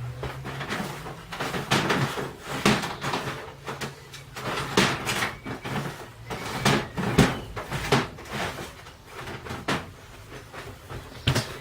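Handling noise of a plastic electronics housing: irregular clicks, knocks and scrapes as the circuit board is worked loose, over a low steady hum.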